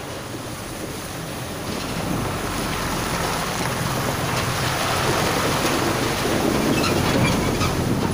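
Diesel dump truck driving through puddles on a broken, muddy road: engine rumble with its tyres splashing through the standing water, growing louder as it passes close by.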